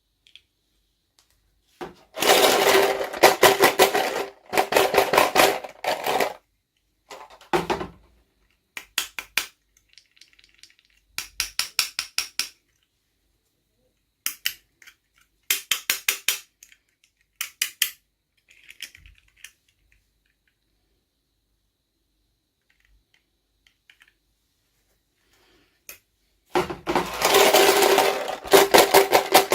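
Packaging being handled and opened during a toy unboxing: bursts of rapid crackling and clicking, separated by short pauses.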